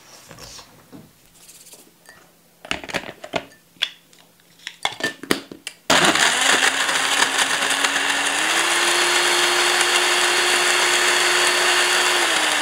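A run of knocks and clicks, then a countertop blender's motor switches on abruptly about halfway through and runs steadily, blending tomato juice, fish and ice cream. Its pitch steps up a couple of seconds after it starts and then holds.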